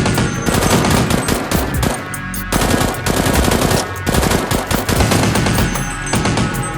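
Rapid automatic gunfire, as a dubbed-in action sound effect: long bursts of shots in quick succession, with brief breaks about two, four and six seconds in.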